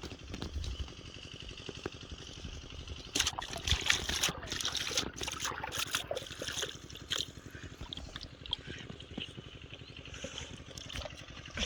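Water splashing and trickling, busiest from about three to seven seconds in.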